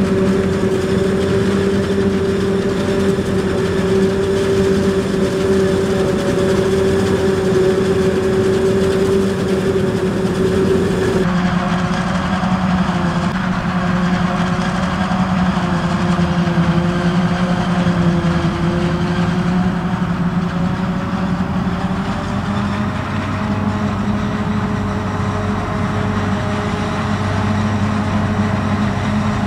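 New Holland FR780 forage harvester and New Holland T7 tractor running steadily together while chopping maize into a trailer: a continuous droning machine hum. The tone changes abruptly about eleven seconds in.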